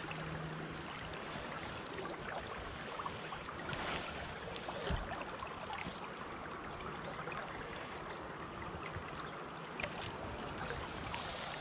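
Creek water running steadily, an even rushing wash, with a couple of faint brief knocks about four and five seconds in.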